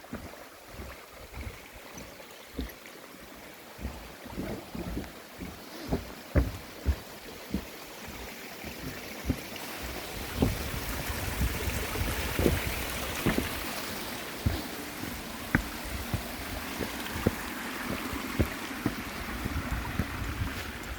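A mountain stream rushing, growing louder from about halfway through, with irregular thumps of footsteps on the trail.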